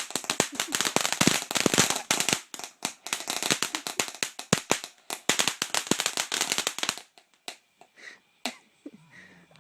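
Consumer firework going off in a fast, dense stream of sharp crackling pops. About seven seconds in it thins to a few scattered pops.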